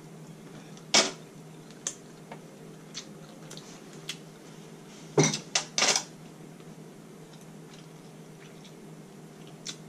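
Eating sounds from a king crab seafood boil in a foil pan: scattered sharp clicks and crackles, with a cluster of several about five seconds in.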